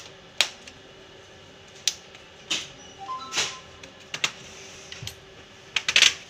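Plastic retaining clips of an HP 15 laptop's bottom case snapping loose as it is pried open with a thin blade: sharp clicks one after another, with a quick cluster of louder snaps near the end as the case comes free.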